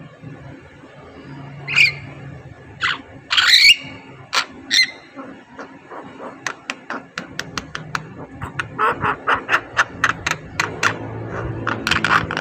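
Javan myna calling: a few short harsh squawks and chirps, then from about halfway a quick run of short clicking notes, several a second, growing denser and louder near the end.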